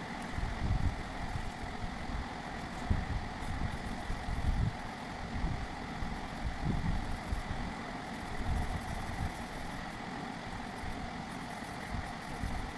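Steady low rumbling background noise with a faint constant hum.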